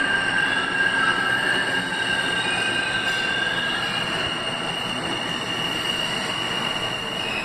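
Eight-car R160A subway train running along an underground station platform: a steady rumble from the train with high-pitched squealing tones over it, the lower of two tones fading out about halfway through.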